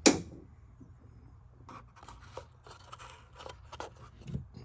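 Handling the old plastic PCV breather valve box: one sharp snap right at the start, then scattered light plastic clicks and taps.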